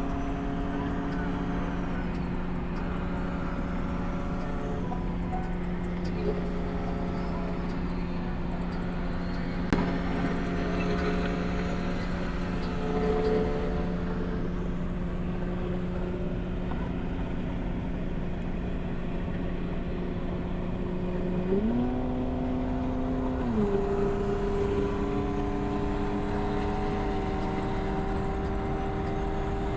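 A car's engine droning steadily at cruise with road noise, heard from inside the cabin. About three quarters of the way through, the engine note rises for a couple of seconds and then settles back.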